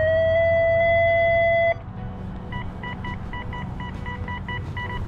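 XP Deus 2 metal detector signalling a strong high-conductivity target reading 89–90, a 'screamer': first a loud steady tone that rises slightly in pitch and cuts off suddenly about two seconds in, then a run of about ten short high beeps, about four a second.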